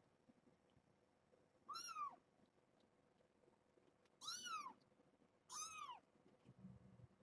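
A kitten mewing three times, short high-pitched cries that rise and then fall in pitch; the first comes about two seconds in, the last two about a second and a half apart.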